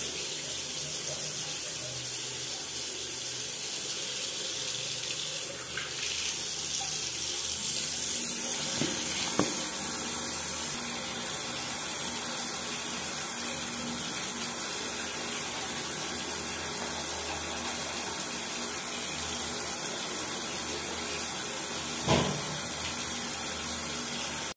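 Water running steadily from a bathroom tap, with a few light knocks.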